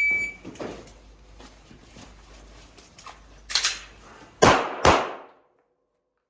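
Shot timer's start beep, a short high tone, then 9 mm shots from a Glock 17 Gen5 pistol: a softer pair about three and a half seconds in and two loud shots about half a second apart near the end. The sound cuts off suddenly after the last shot.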